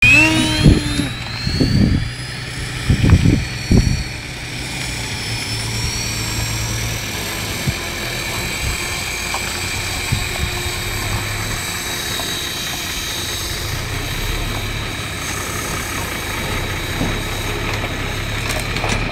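Electric Align T-Rex 450 Pro RC helicopter: a high motor-and-rotor whine that rises in pitch in the first second, then runs steadily as the model hovers. A few loud low thumps come in the first four seconds.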